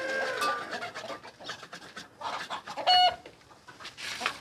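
Domestic chickens clucking, with one loud, short call about three seconds in.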